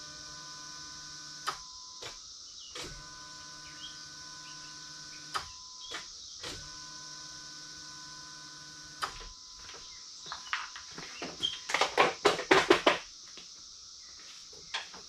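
Dodge SRT-4's electric fuel pump priming three times as the ignition key is cycled to build fuel pressure: a steady whirring hum of two to three seconds each time, each starting and stopping with a click. Near the end, a short run of loud knocks and rattling.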